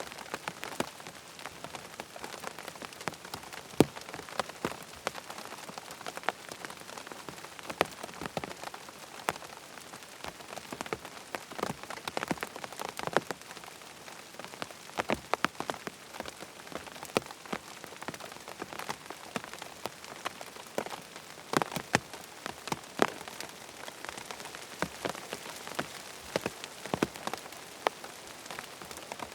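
Rain falling on a tent: a steady hiss of rain with many separate drops tapping on the fabric, some much louder than the rest.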